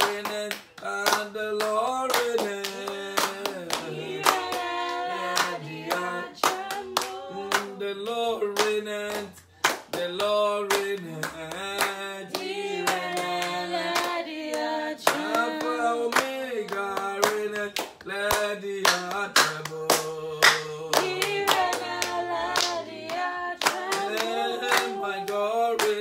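A man singing a worship song while clapping his hands in a steady rhythm.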